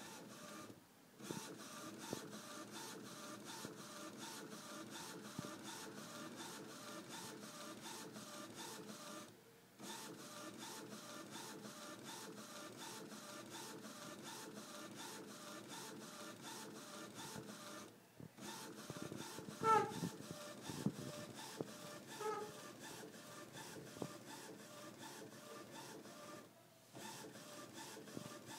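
Epson Stylus S22 inkjet printer, converted into a homemade direct-to-garment printer, printing onto a T-shirt: its print-head carriage runs back and forth with rapid, steady ticking. The ticking breaks off briefly about every eight or nine seconds, and a short, louder pitched chirp comes a little past two-thirds of the way through.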